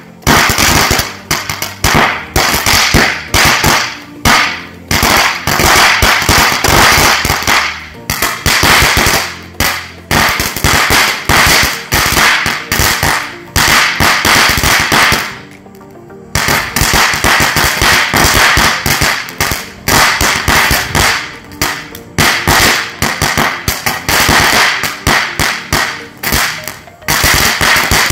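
Ground crackling fountain firework (Gnanavel 'Pop It') going off: a loud, dense stream of rapid sharp crackling pops as it sprays sparks, with a brief lull about fifteen seconds in.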